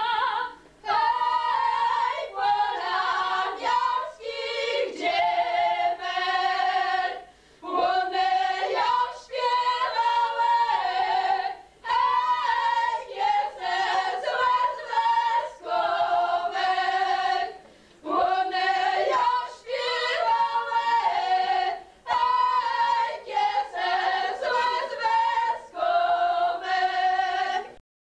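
A women's folk singing group singing a Podhale highland song a cappella, in short phrases with a brief breath between each; the singing stops near the end.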